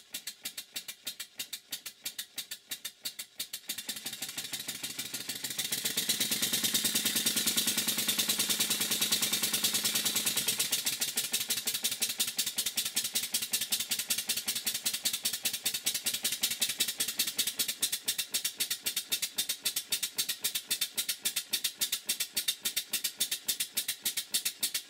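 Model beam engine running with a fast, even mechanical beat. It speeds up and grows louder about four seconds in, then eases back to a steadier, slightly slower beat about halfway through.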